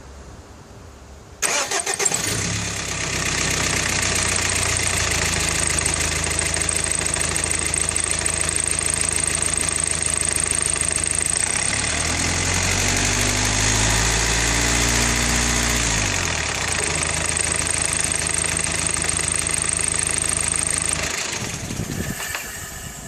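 Subaru XV boxer diesel engine starting about a second and a half in, idling, revved once briefly near the middle, then shut off near the end. A thin high squeak runs through the idle and drops away while the engine revs.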